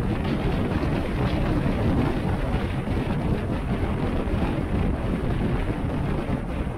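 A car being driven, with steady road and wind noise as a deep, even rumble and no clear engine note.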